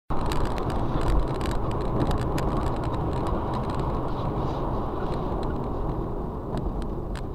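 Car driving at road speed, heard from inside the cabin: a steady rumble of tyres and engine with scattered light clicks and rattles, easing slightly towards the end.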